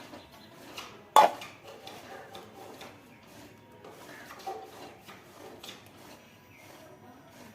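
Handling noise at a workbench: one sharp knock about a second in, then light clinks and rustles. No drill motor is running.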